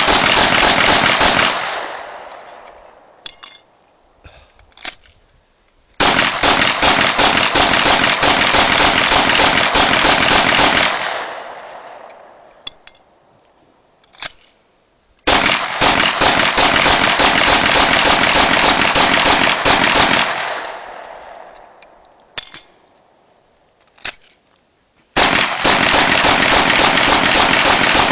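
Grand Power K100 9 mm pistol fired rapidly in strings of about five seconds each: one ends just after the start, two full strings follow, and another begins near the end. A few single sharp reports fall in the pauses between strings.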